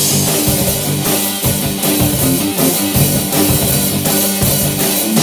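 Rock band playing an instrumental passage on drum kit, electric guitar and bass guitar.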